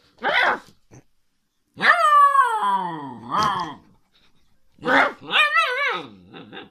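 Husky-type puppy barking and howling: a short bark at the start, a long howl falling in pitch about two seconds in with a yip after it, then a wavering howl near the end.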